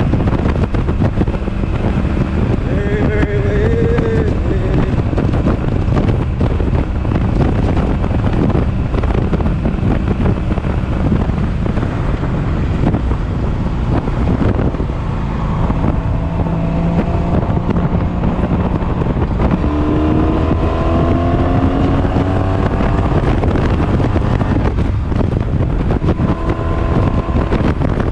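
Heavy wind buffeting the microphone over the running V4 engine of a 1983 Honda Sabre 750 motorcycle at highway speed. The engine note climbs in pitch as it accelerates, about two-thirds of the way through. It is being revved out to clear carbon.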